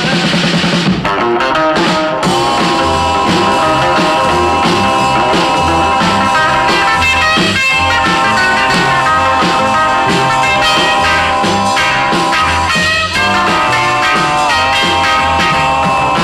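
Rock and roll music with electric guitar and a steady beat.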